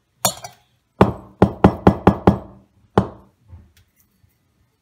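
Orange ceramic mug knocked sharply over and over to shake loose the flaxseeds still stuck inside it. There is a single knock at the start, a quick run of about six knocks from about a second in, and a last knock near three seconds.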